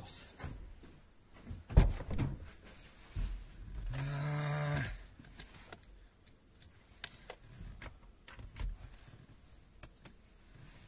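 Scattered handling knocks and rustles, with one sharp knock about two seconds in and a short steady hum a little before the midpoint. The air compressor is not running.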